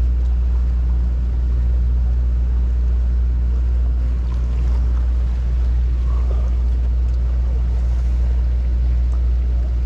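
Steady low drone of a sportfishing boat's idling engines, even and unchanging.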